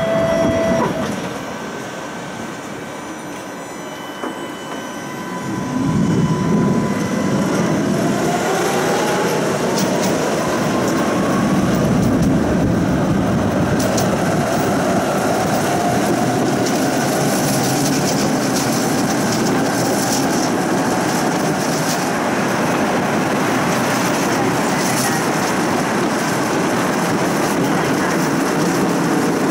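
Electric tram pulling away from a stop. A steady tone cuts off about a second in, and after a few quiet seconds the traction motors whine, rising in pitch as the tram accelerates. It then settles into the steady rolling noise of the wheels on the rails, with occasional clacks.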